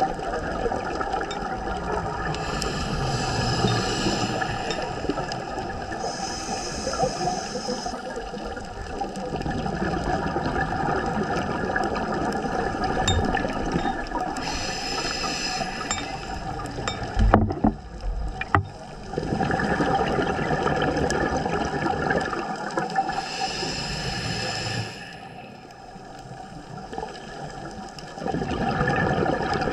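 Scuba diver's regulator underwater: a hiss with each inhale, four times at intervals of several seconds, with bubbling exhalations between them over a steady hum. A few sharp knocks come a little past the middle.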